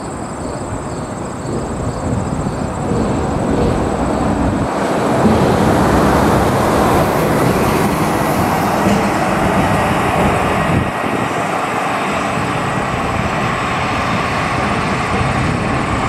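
Steady rumble and rushing noise of a moving vehicle, swelling louder about five seconds in and cutting off abruptly at the end.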